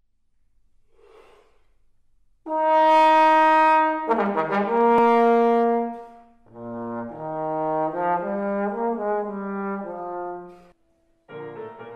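Brass music in trombone tones: a loud held note begins about two and a half seconds in and falls to a lower held note, then several brass parts play a slow phrase in harmony, breaking off briefly near the end before a new chord.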